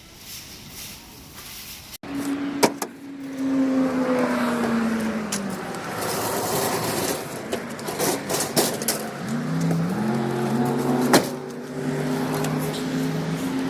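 Ford F250 pickup with a 6.0 Powerstroke diesel driving: the engine note falls as it slows, then climbs again in steps as it shifts through the gears, with a few sharp clicks.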